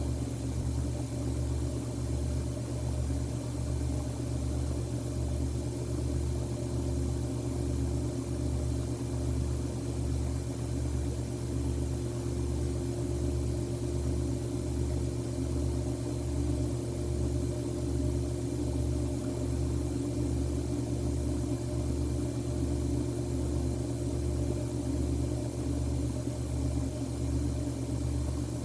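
A steady low mechanical hum that throbs evenly a little over once a second, with faint steady tones above it.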